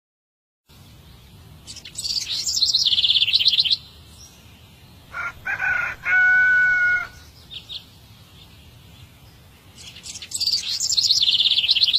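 Birds calling: two bursts of rapid, high chirping trills, with a lower, held call between them.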